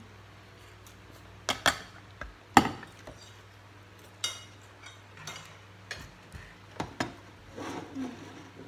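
Spoons and forks clinking against ceramic plates and a serving bowl while eating: about eight short, sharp clinks spread irregularly, the loudest about two and a half seconds in.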